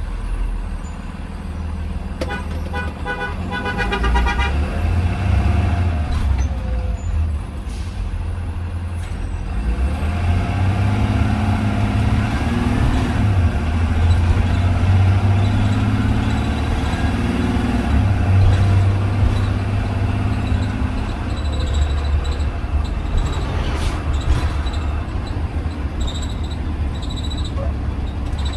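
Engine and drivetrain of a 2020 Blue Bird Vision school bus under way, heard from inside the bus. A steady low drone, with the engine note rising and falling in the middle as the bus pulls away and changes speed.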